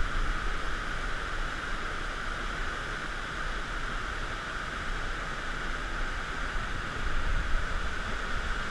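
Creek in flood, muddy water rushing past in a steady, unbroken noise.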